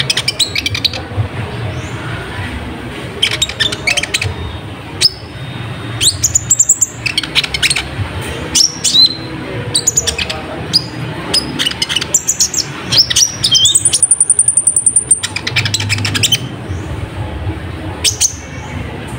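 Brown-throated sunbird (kolibri ninja) singing in lively bursts of sharp, high chirps and quick rising and falling whistled notes. A fast, very high trill lasting about two seconds comes past the middle.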